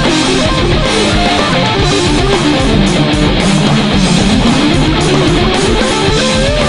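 Electric guitar improvising lead lines over a heavy metal backing track. Near the end it holds a note that wavers up and down.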